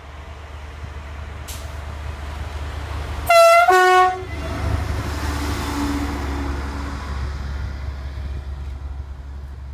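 SNCF V6 rail-surveillance vehicle approaching at speed and passing close by: a rising rush of wheels on rail, then a short two-note horn blast just over three seconds in as it draws level. After that its rumble fades as it runs away.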